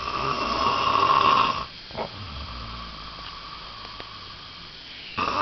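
Heavy snoring in a sleeper's breathing cycle: one loud rasping snore lasting under two seconds, a few seconds of quieter breathing, then the next loud snore beginning near the end.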